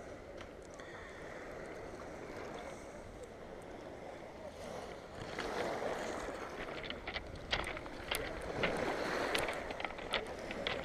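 Sea waves washing against a rocky shore, steady at first and growing louder about halfway through, with a run of sharp clicks and taps from then on.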